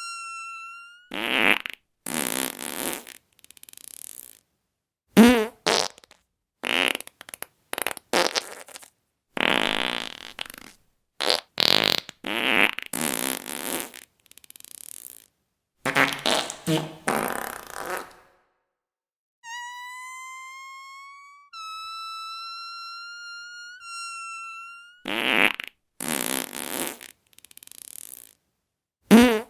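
A rapid string of fart sounds, about fifteen in all, some short and sputtering, some drawn out for a second or two with a wavering buzz. Around the middle, a plain high tone sounds for about five seconds instead, rising slightly with a short break.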